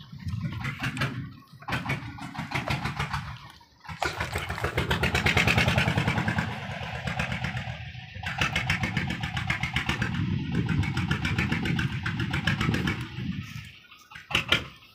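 Small wooden boat's engine running close by with a fast, even chugging. It is quieter and uneven at first, loud and steady from about four seconds in, and it fades near the end.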